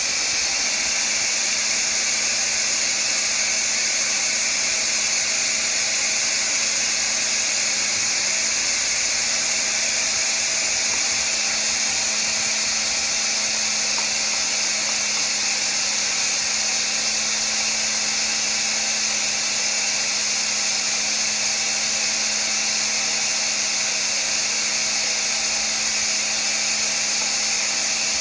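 An upholstery-cleaning extraction machine's vacuum motor running steadily, with a high-pitched whine over a low hum.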